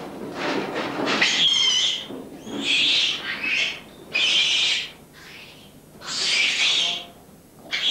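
A young baboon screaming over and over, about five shrill screams each lasting under a second, one of them wavering, as it is pulled from its steel cage by a gloved handler.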